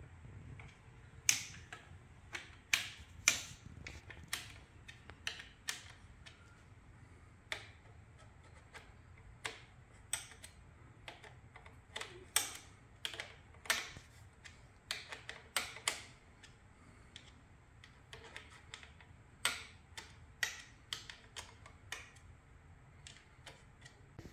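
Hand tools and bolts clicking and tapping against motorcycle parts: sharp, irregularly spaced clicks as the front fender bolts are taken out with a T-handle driver and the plastic front fender is fitted.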